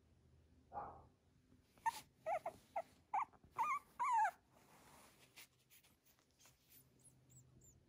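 Young miniature Schnauzer puppy whimpering: a short breathy sound, then a quick run of about six high, wavering squeaks over two seconds or so, fading to a few faint peeps near the end.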